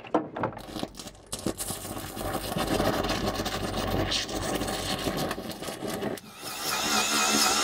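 Stick welding arc on aluminium, with the current just raised 10 amps: a few sharp crackles as the arc strikes, then a steady crackling hiss for several seconds as the aluminium rod burns. A little after six seconds in it cuts off and a different steady sound with a wavering high whine takes over.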